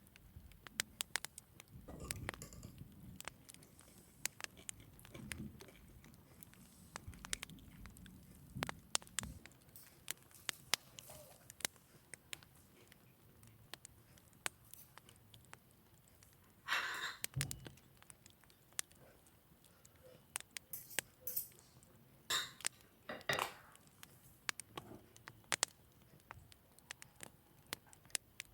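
Cutlery and dishes clinking and tapping, with scattered light clicks and a few short scrapes.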